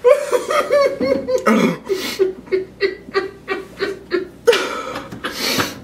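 A person laughing in a quick run of short, evenly spaced 'ha' pulses, then two loud breathy gasps near the end.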